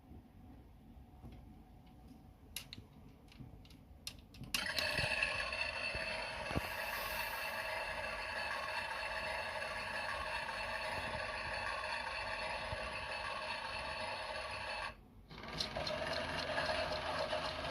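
Toy Miele washing machine: a few faint clicks, then about four and a half seconds in its small motor starts and runs steadily with a whirring rattle. Near the end it stops for half a second and starts again.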